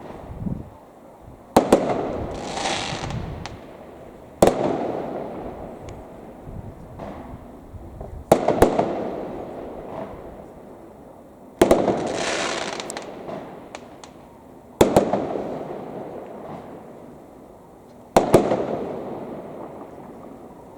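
Aerial firework shells bursting: about seven sharp bangs, three to four seconds apart, each rolling away in a long echo. Two of the bursts are followed by a high hissing spray.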